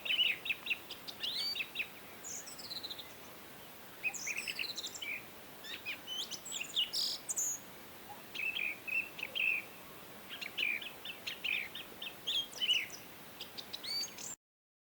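Several songbirds chirping and singing in quick, overlapping phrases over a faint steady hiss. The sound cuts off abruptly near the end.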